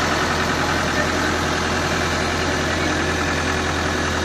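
Diesel engine of an EX60 hydraulic excavator running at a steady speed, a low even hum.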